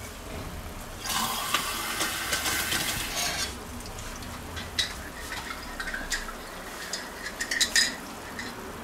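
Water running for about two and a half seconds, then a spoon clinking and scraping in a vessel as the vegetable broth is stirred and thinned down.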